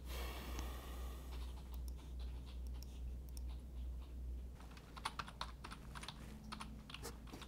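Computer keyboard typing: a few scattered key clicks, then quicker, sharper keystrokes from about two-thirds of the way in.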